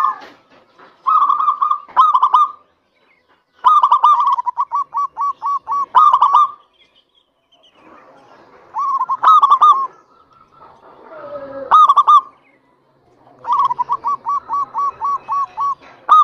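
Zebra dove (perkutut) cooing: about five phrases, each a quick run of short, evenly spaced coos that ends on a sharper note, with short pauses between the phrases.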